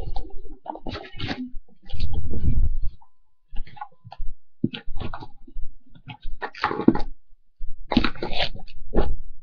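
Close, irregular handling noise: rubbing, rustling and small knocks near the microphone, with a loud low rumble about two seconds in and two louder scrapes near the end.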